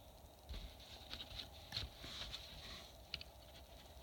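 Faint clicking and rustling of a plastic LEGO Technic model being handled, a run of small irregular clicks that ends with one sharper click a little after three seconds.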